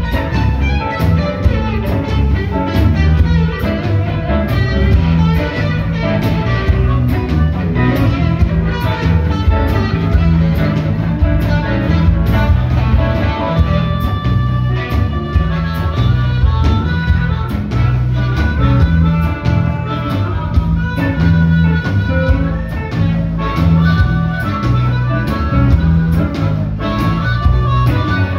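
Live blues band playing: an electric guitar solo over bass and drums, with a harmonica coming in near the end.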